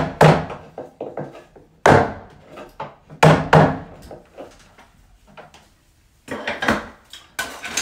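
Sharp wooden knocks as a wooden block, a carpenter's knocker, is struck against crown molding at a mitered corner to tap the joint into alignment. There are a handful of knocks about a second apart, a pause, then more knocking and clatter near the end.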